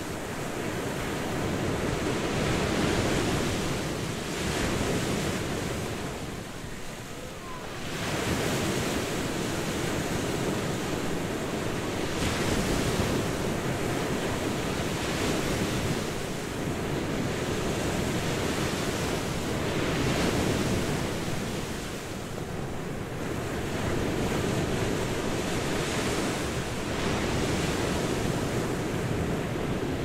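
Sea waves breaking and washing on a beach: a continuous rush of surf that swells and ebbs, with a brief lull about seven seconds in.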